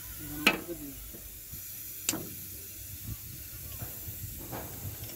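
Two sharp metallic clinks of a spanner working the bolts of a crane gearbox's drive-shaft flange, about a second and a half apart, followed by a few lighter taps, over a steady background hiss.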